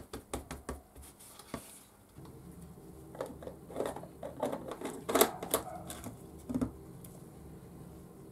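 Light clicks and knocks of hands handling a jar and leather on a workbench, with a steady low hum setting in about two seconds in.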